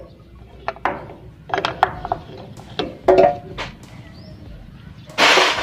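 Scattered metallic clicks and clinks of the cylinder head cover and rocker parts of a Honda TMX155 pushrod engine being handled as the cover comes off, with one ringing clink about three seconds in. A short scraping noise near the end.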